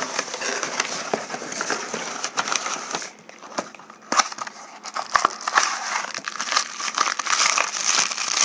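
Packing paper crumpling and crinkling as it is stuffed into a cardboard shipping box, an irregular run of crackles that grows louder in spells partway through and near the end.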